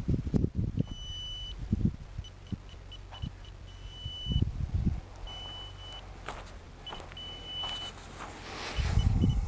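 Handheld long-range water detector beeping: a run of short high pips broken every second or so by longer held beeps. Low rumbles of wind on the microphone come and go beneath it.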